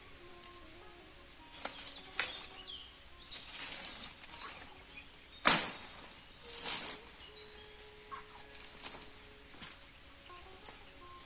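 Rustling and crackling of leafy plant stems as a person pushes into and pulls at a wet thicket by hand, in several short bursts with one loud, sharp noise about halfway through. Birds chirp faintly.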